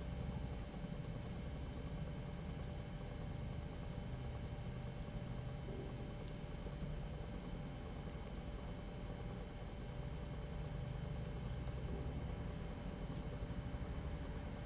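Siberian chipmunk chewing and nibbling a seed held in its forepaws, a steady fast crunching close to the microphone. Faint high chirps sound in the background, and a brief, louder high-pitched trill comes about nine seconds in.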